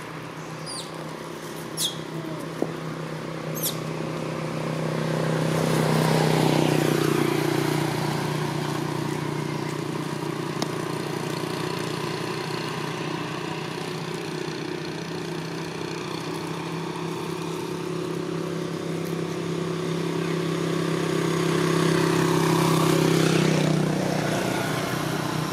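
A motor vehicle engine running at a steady pitch, swelling louder over the first several seconds, holding, then peaking again near the end before fading out.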